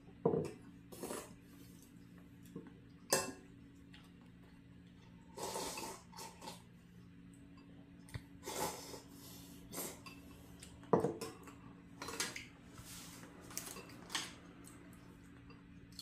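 Someone eating noodle soup: chopsticks clicking against a ceramic bowl and a steel pot, with short slurps of noodles and broth, in scattered bursts a second or two apart over a faint steady hum.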